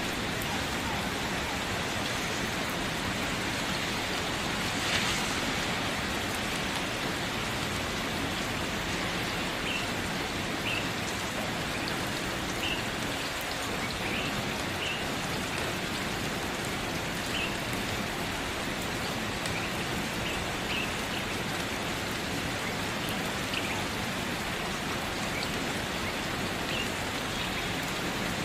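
Steady rain falling: an even hiss with scattered drops, and one brief louder hit about five seconds in.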